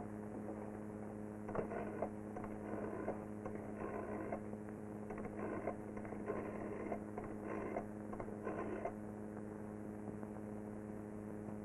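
Steady electrical mains hum on an old television film soundtrack, with faint scattered sounds coming and going through the middle.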